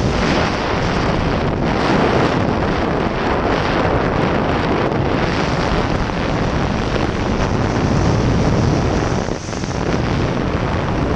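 Loud, steady rush of airflow past the open door of a light aircraft in flight, buffeting the microphone, with a brief dip about nine seconds in.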